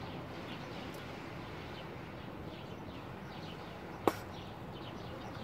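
Bubble gum bubble bursting with a single sharp pop about four seconds in, over faint bird chirps in the background.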